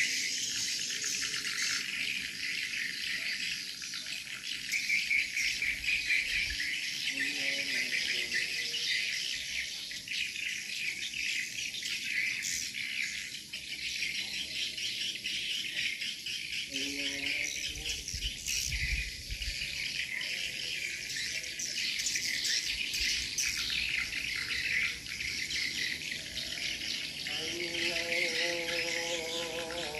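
Edible-nest swiftlets inside a swiftlet house, a dense, continuous high-pitched twittering and clicking chatter. A few lower, more tonal calls break through now and then, the longest near the end.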